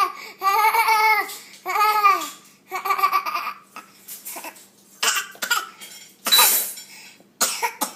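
A toddler's high voice making a few drawn-out rising-and-falling calls, then a run of short breathy sputtering bursts, her imitation of machine-gun fire.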